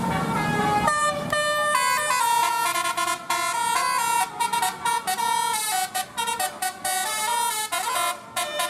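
A bus's telolet basuri musical horn playing a quick melody, note after note stepping up and down with short gaps between them. A low rumble sits under it during the first second.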